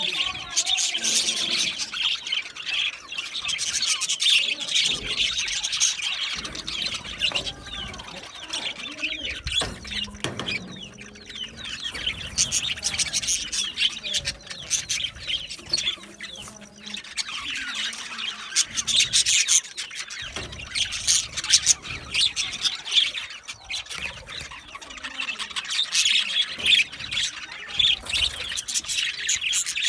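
Budgerigars chirping and chattering continuously, many quick overlapping warbles and squawks.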